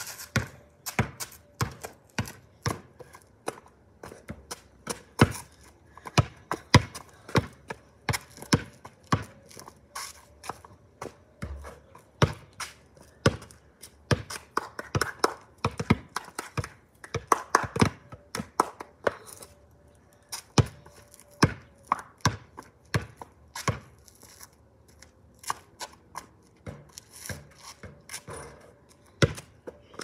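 A basketball bouncing on a concrete driveway as it is dribbled: sharp, uneven bounces, several a second. A faint steady tone sits underneath.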